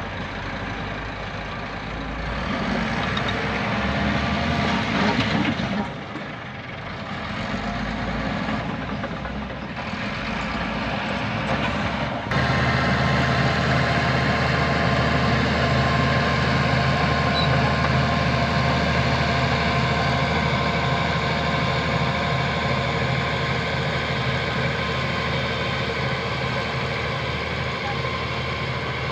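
Heavy diesel engines of dump trucks and a bulldozer at work. The engine note rises and falls for about twelve seconds, then changes abruptly to a steady, even drone.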